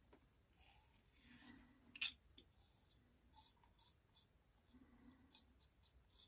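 Double-edge safety razor with a Gillette Nacet blade scraping faintly through lathered stubble around the lips and chin in short strokes, with one sharp click about two seconds in.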